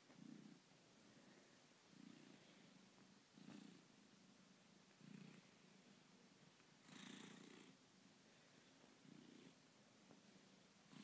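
Domestic cat purring faintly and close, the purr swelling and easing in a regular cycle about every second and a half as it breathes, while it kneads and suckles a fleece robe. A brief, fuller and noisier sound comes about seven seconds in.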